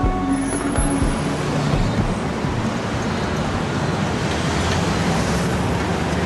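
Steady city road-traffic noise, an even rush of passing vehicles.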